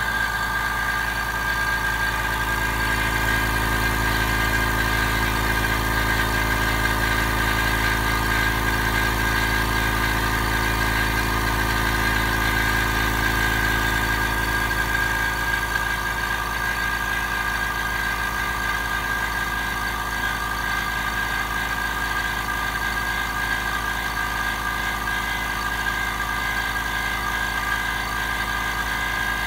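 Anest Iwata FX7601 PIXIE oil-free air compressor running steadily, a constant motor-and-pump hum with a high whine on top. About halfway through, a low part of the hum drops away while the rest carries on unchanged.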